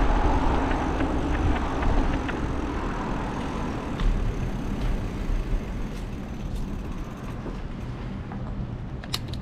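Outdoor road noise on a bicycle-mounted GoPro: a steady rumble of wind on the microphone and passing traffic, slowly dying down.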